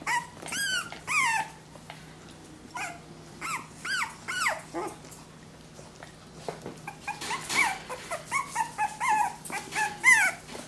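Cavalier King Charles Spaniel puppies, about four and a half weeks old, whimpering and yelping in short high-pitched cries, a few near the start, a cluster around the middle, and a quick run of them in the last few seconds.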